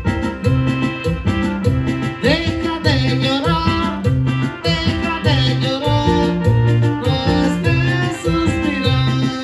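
Live band playing an instrumental passage of a Latin dance song: a steady repeating bass and keyboard accompaniment under a lead melody with wavering, vibrato-laden pitch.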